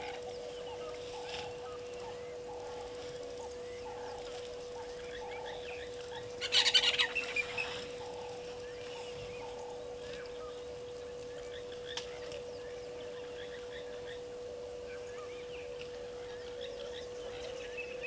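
Bush birds chirping and calling, with one loud, harsh rapid call lasting about a second that starts about six and a half seconds in; a steady humming tone runs underneath.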